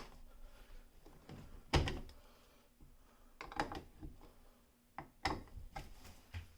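A light switch's cover plate being handled and pressed into place over the switch: a few separate clicks and knocks, the loudest about two seconds in and two more near the middle and end.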